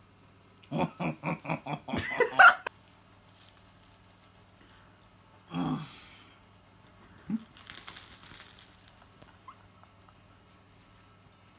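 A person laughing: a quick run of about six short giggles about a second in, ending in a louder burst, then a brief further laugh sound a few seconds later.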